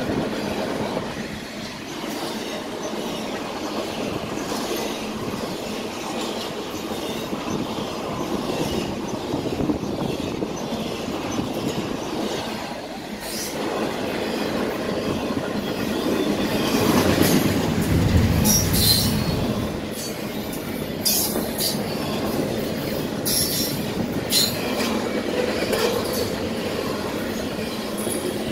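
Intermodal freight train cars rolling past on the rail: a steady rumble and rattle of wheels on the track. It swells about two-thirds of the way through, with short sharp high-pitched wheel squeals in the later part.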